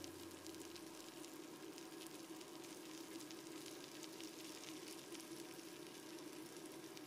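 Faint sizzling of sausages, onions and tomato slices frying in a nonstick pan, dotted with many small crackles.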